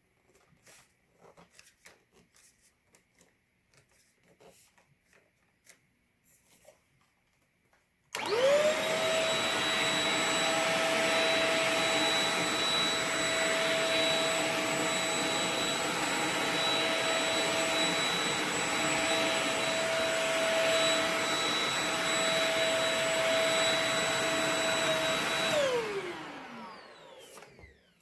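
Shark Rocket TruePet stick vacuum switched on about eight seconds in. Its motor spins up in a fraction of a second to a steady high whine over rushing air, runs for about seventeen seconds, then is switched off and winds down with a falling pitch. Faint clicks come before it starts.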